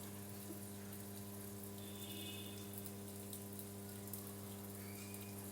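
Water running into the drum of a Samsung top-loading washing machine as it fills at the start of a wash cycle, a steady even rush under a steady low hum.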